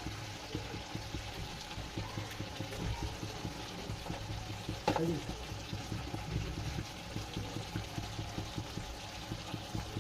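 Chicken curry sizzling and bubbling in a cooking pan, a steady crackle of small pops, with one sharper click about halfway through.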